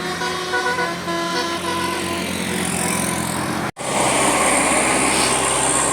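Indonesian bus telolet horn playing a tune of several steady tones that change pitch in steps. A little past halfway the sound breaks off suddenly and gives way to a louder, noisier stretch with a steady high hiss.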